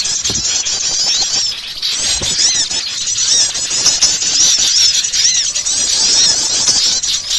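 Noisy, continuous chattering of many small songbirds: rapid, high-pitched, arching chirps overlapping without a break. It is a bird-lure recording of small garden birds, used to draw wild birds in.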